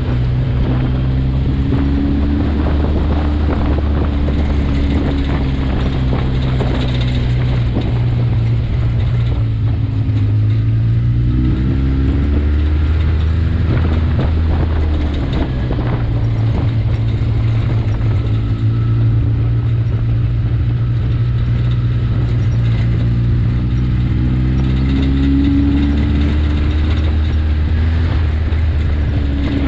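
Side-by-side UTV's engine running under way, a steady drone whose pitch dips and climbs again about a third of the way in and once more near the end as the throttle changes.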